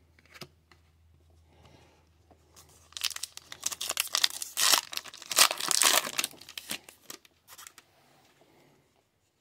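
An Upper Deck hockey card pack's wrapper being torn open by hand: quiet handling at first, then about three seconds in a loud, rapid run of crackles as the wrapper rips, dying away a few seconds later as the cards come out.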